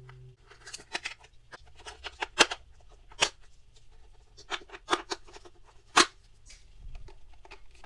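Irregular plastic clicks and taps as batteries are fitted into a toy alarm clock's battery compartment, with two sharper snaps, about two and a half and six seconds in.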